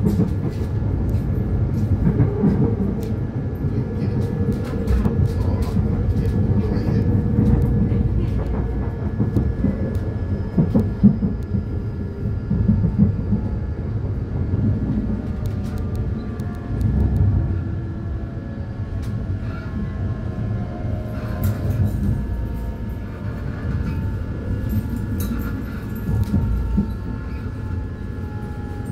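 Electric commuter train running on the rails: a steady low rumble with scattered clicks. In the second half a thin whine falls steadily in pitch.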